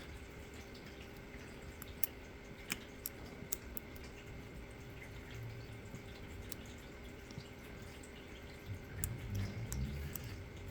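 Scattered small clicks of a pick working the rotating discs inside an ASSA D12 disc-detainer lock, with some low handling noise near the end.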